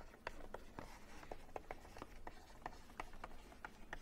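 Faint taps and scratches of a stylus on a tablet screen as words are handwritten: short, irregular ticks, about four a second.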